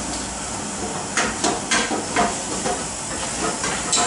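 Busy commercial kitchen: a steady hiss from the gas burners and boiling pots, with a run of sharp metal clatters and knocks from pots and utensils between about one and three seconds in, and one more near the end.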